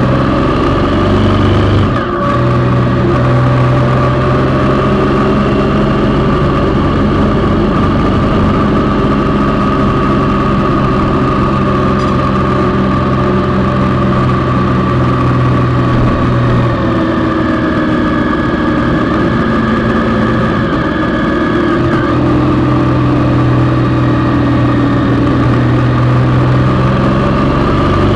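Engine of a Triumph Sprint ST1050, a 1050 cc three-cylinder, running steadily while the motorcycle rides along, with wind rush. The engine note shifts slowly, with a brief drop in sound about two seconds in.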